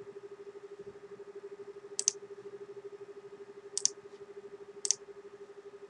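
Computer mouse clicks: one about two seconds in, a quick double click near four seconds, and another about a second later. A steady low hum runs underneath.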